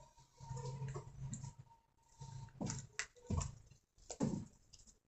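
Faint handling noise of sewing craft materials by hand: a few light clicks and taps with soft rustling between them.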